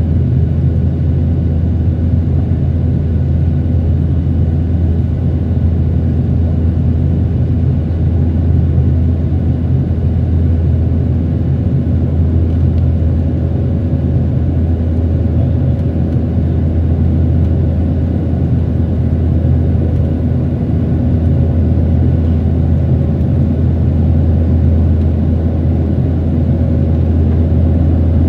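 Airbus A320 cabin noise in flight: a loud, steady low drone of the jet engines and airflow heard from a window seat beside the wing engine, with a faint steady hum above it.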